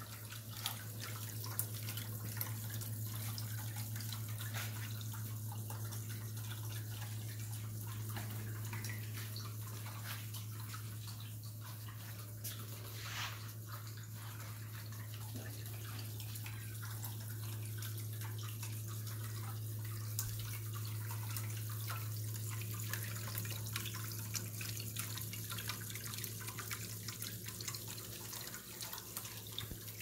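Water sheeting down the glass panel of a water-wall fountain and splashing and trickling into a pebble-filled basin, with a steady low hum underneath.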